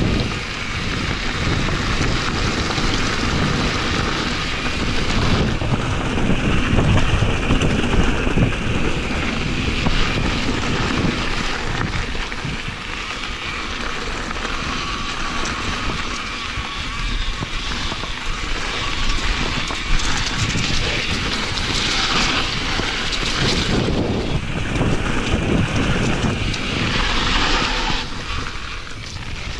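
Wind buffeting the microphone of a camera carried on a mountain bike ride, over the rumble of knobby tyres on a dirt trail and the bike rattling over bumps. It eases off for a few seconds in the middle.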